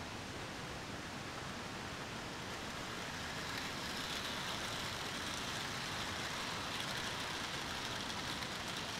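Hornby Dublo three-rail model train, a streamlined locomotive with coaches, running along the track: a steady rolling whir of wheels and motor over a background hiss. It gets louder about three and a half seconds in as the train passes close by.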